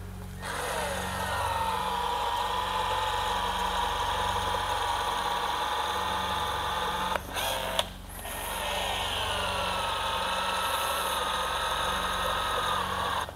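Small electric motor of a cordless caulking gun whining as it drives the plunger to extrude a polyurethane urethane bead around the roof opening for bonding the new panoramic glass. The whine settles slightly lower in pitch as each run begins. It runs twice, with a short break and a couple of clicks about seven seconds in.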